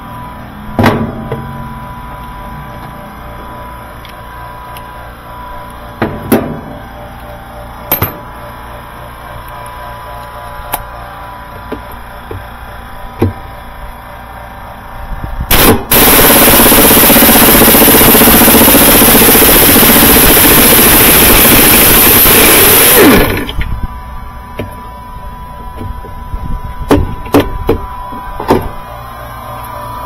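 Pneumatic impact wrench hammering for about seven seconds, starting a little past halfway, on the stubborn agitator bolt of a top-load washer. Before and after it come scattered sharp clicks and knocks.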